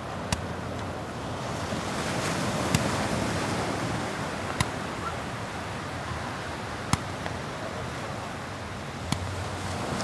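Small sea waves washing up a sandy beach in a steady surge that swells a couple of seconds in and then eases. Sharp pops of small fireworks launched from the beach come about every two seconds, five in all.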